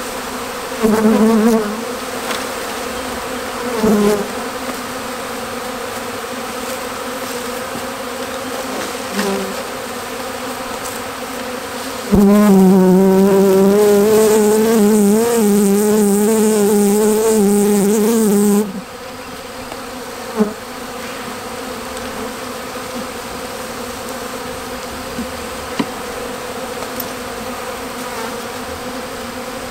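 A honeybee swarm buzzing steadily as it is disturbed from its cluster and raked into a hive box. Single bees fly close past the microphone with a louder buzz about a second in and again at four seconds, and one hovers at the microphone from about 12 to 18 seconds with a wavering pitch.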